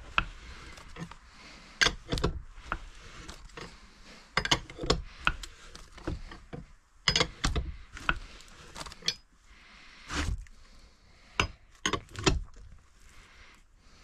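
Irregular metallic clicks and clinks of a ratchet working a crankshaft installer tool, drawing the crankshaft into a Honda AF05 scooter engine case half.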